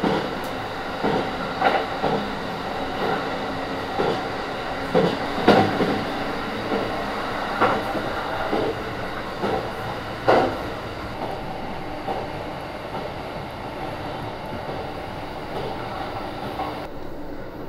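Running noise of a JR East E235 train heard from inside its double-decker car: a steady rumble and hum with irregular knocks and rattles, the strongest about five and a half and ten seconds in.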